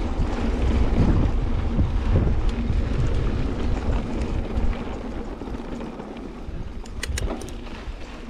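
Wind buffeting the microphone over the rumble of a mountain bike's tyres rolling on a dirt trail, growing quieter over the second half, with a few sharp clicks near the end.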